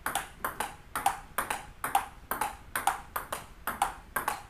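Table tennis ball clicking off a paddle and bouncing on the table over and over, about three sharp clicks a second, in a steady run of forehand drives.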